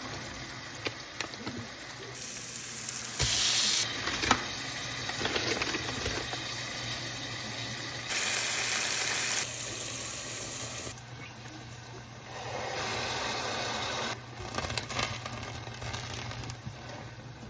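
Kitchen cooking sounds: a steady hiss of food sizzling in a pan, with scattered clicks and clinks of utensils. The hiss jumps louder and softer abruptly several times.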